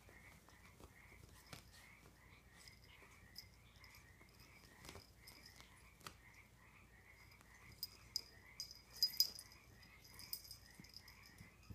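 A faint, regular chirp repeating about three times a second throughout. Over it come soft scratching and rustling of a Bengal kitten pouncing on a fabric blanket, loudest in a short flurry about eight to nine seconds in.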